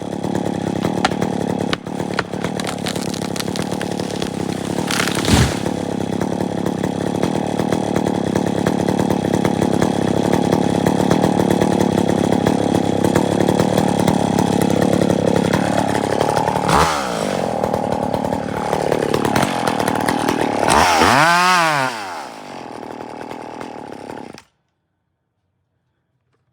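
Two-stroke chainsaw running at full throttle, cutting into the trunk of a rotten, leaning fir tree. Near the end its pitch dips and climbs a couple of times, then it drops to a lower, quieter running before the sound cuts off abruptly.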